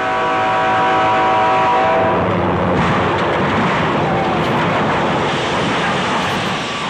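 A Burlington Northern diesel locomotive's air horn sounds a steady multi-note chord and stops about two seconds in. Half a second later the locomotive hits a school bus with a sudden loud crash, followed by continuous heavy scraping and grinding noise as the wrecked bus is pushed along the track.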